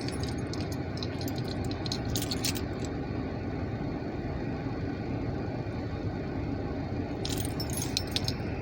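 Small aluminium mini carabiners clicking and jingling against each other in short bursts near the start, about two seconds in, and again near the end, over a steady low rumble.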